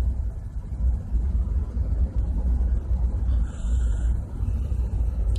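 Steady low rumble of running machinery aboard ship, with a brief faint higher noise about three and a half seconds in.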